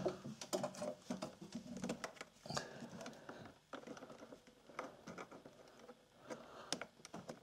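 Faint, scattered clicks and rustles of hands handling wires and multimeter test-lead clips on a washing machine heating element's terminals.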